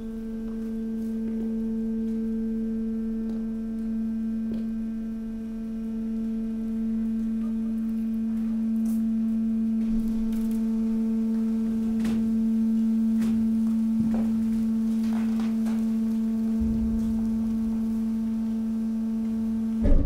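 Hydraulic waste compactor running, its pump giving a steady, even hum under load, with scattered small cracks and clicks from the waste being pushed. The hum cuts off just before the end, followed by a loud clunk.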